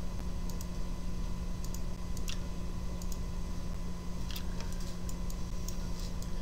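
Sparse, irregular clicks of a computer mouse and keyboard over a steady low hum.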